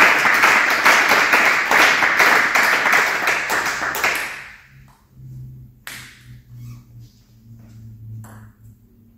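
Clapping after a table tennis rally that dies away about four seconds in. It leaves a quiet sports hall with a low hum and a few faint taps of a table tennis ball.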